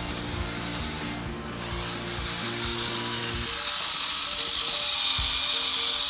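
Music with stepping notes, over the steady whir of a small electric gear motor driving a remote-control model tractor pulling a loaded trolley. The music thins out about halfway through.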